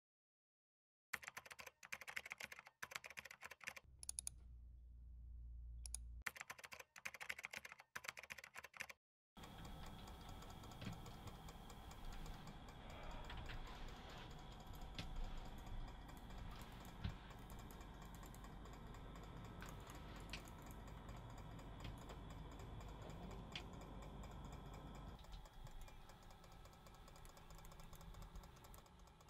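Typing on a laptop keyboard: quick irregular runs of keystrokes with short breaks over the first third, then a steady low hiss with occasional single clicks.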